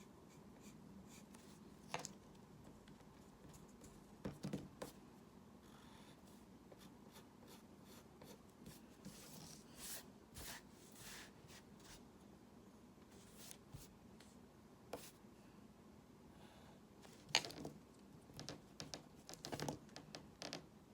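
Faint drawing sounds: short, scattered scratching strokes of a pen on a drawing surface, with a few light taps. The loudest is a sharp tap a little past two thirds of the way through.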